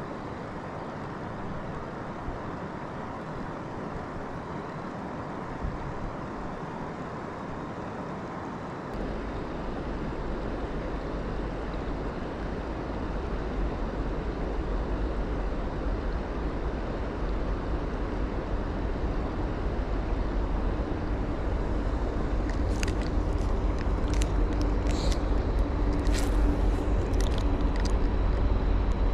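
Steady rushing of river rapids. A low rumble comes in about nine seconds in and grows louder toward the end, and a few light clicks sound near the end.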